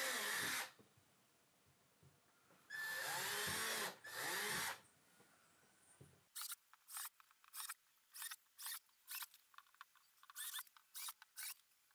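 Cordless drill pre-drilling screw holes in PVC board: short runs of the motor, the pitch rising and falling as it spins up and slows, with pauses between holes. From about halfway, short, thin, high-pitched bursts repeat about twice a second.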